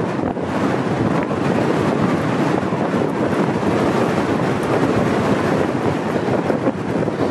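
Strong mountain wind buffeting the microphone: a steady, loud, rumbling rush without any pitched engine tone.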